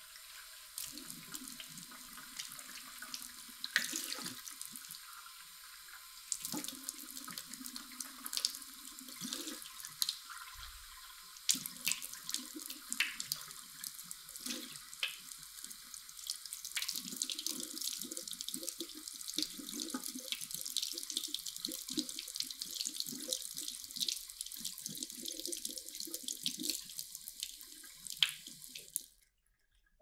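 Kitchen tap water running into a sink and splashing over a vacuum filter being rinsed by hand, with uneven splashes as the filter is turned in the stream. The water stops abruptly near the end as the tap is turned off.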